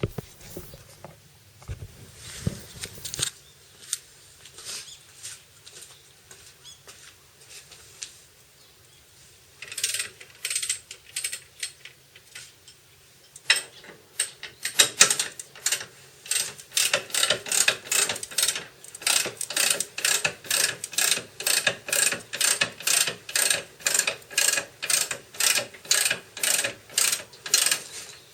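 Hand ratchet wrench clicking in steady back-and-forth strokes, about two to three clicks a second, from about halfway through; before that, scattered clicks and knocks of tools being handled.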